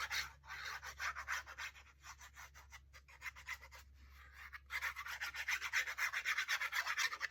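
Quick back-and-forth rubbing on paper, smoothing a freshly glued sheet flat over a glued-in magnet. The strokes ease off for a couple of seconds in the middle, then pick up again briskly.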